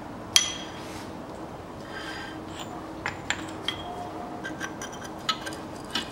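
Metallic clinks and clicks of a socket wrench and tools on a Hyundai Accent's front hub while the drive-shaft nut is tightened. The loudest clink, which rings briefly, comes about half a second in, followed by scattered lighter clicks, over a faint steady hum.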